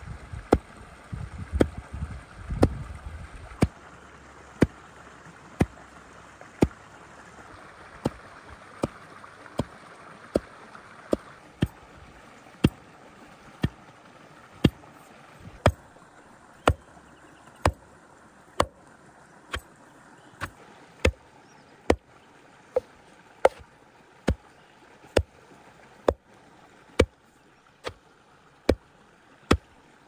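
A steady series of sharp knocks, about one a second, over a constant faint rushing background. A low rumble runs under the first few seconds.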